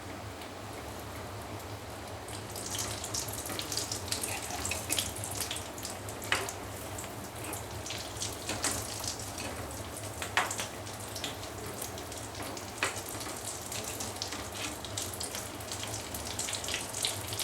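Breadcrumb-coated egg devils deep-frying in hot oil in a kadai: a steady sizzle full of crackles, with sharp pops every second or two, getting busier a couple of seconds in.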